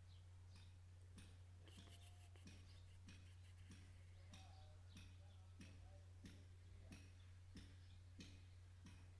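Faint computer mouse clicks, evenly spaced about every two-thirds of a second, over a steady low hum.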